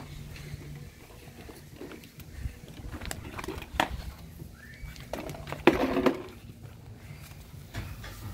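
Scattered clacks and knocks of hands rummaging through river rocks and a plastic bucket while searching for hidden eggs. The loudest knock comes a little past halfway.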